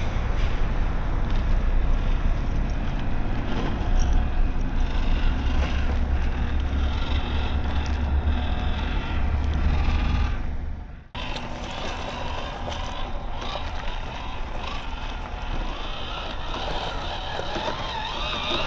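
Small electric RC crawler driving, a 1:18 FMS FJ Cruiser, its motor and gears whining under a heavy rumble of wind on the microphone. The sound cuts out briefly about eleven seconds in, then carries on.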